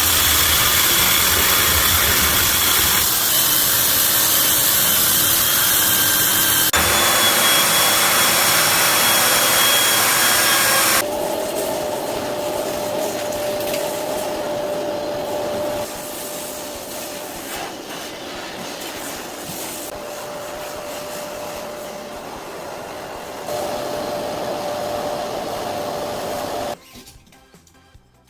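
Power tools running steadily, in a series of short clips that change suddenly every few seconds; the later clips carry a steady mid-pitched whine.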